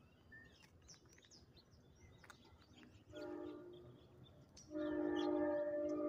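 Train horn sounding: a short blast about three seconds in, then a longer, steady blast starting about five seconds in.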